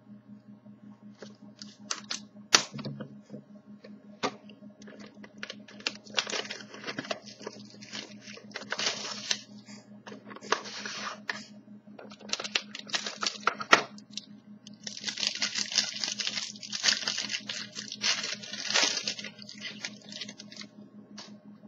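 Trading-card packaging being torn open and crinkled by hand, in irregular bursts of rustling with scattered clicks and scrapes. A steady low electrical hum runs underneath.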